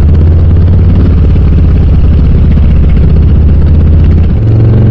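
Harley-Davidson Low Rider S's Milwaukee-Eight 117 V-twin running loud through Cobra RPT slip-on mufflers, a steady low exhaust note. A little past four seconds in the note dips briefly and then comes back higher in pitch.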